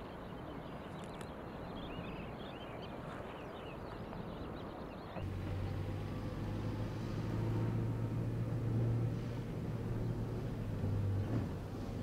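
Open-field ambience with birds chirping for the first five seconds. Then, after an abrupt change about five seconds in, a small off-road SUV's engine hums steadily as it drives slowly along a dirt track, loudest a few seconds later.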